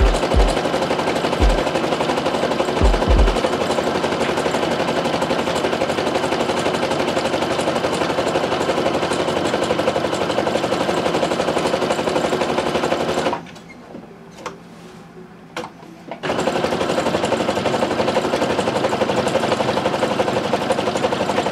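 Brother NQ470 domestic sewing machine running steadily as it stitches an embroidery design. It stops for about three seconds a little past the middle, then starts again. A few low thumps come in the first few seconds.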